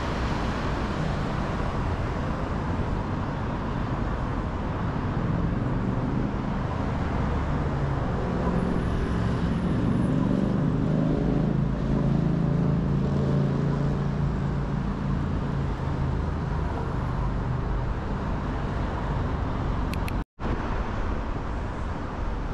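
Busy city road traffic: a steady rush of passing cars, with a heavy vehicle's low engine hum building through the middle. The sound cuts out completely for an instant near the end.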